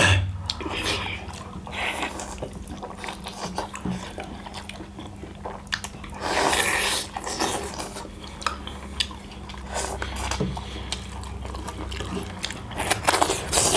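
Close-up eating sounds: biting and chewing chicken curry leg pieces and kodo (finger-millet) dhido, with many short sharp clicks and wet mouth sounds and a longer noisy stretch about six seconds in.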